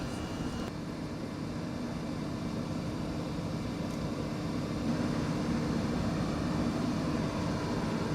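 Aircraft engines running steadily: a constant hum under an even rush of noise.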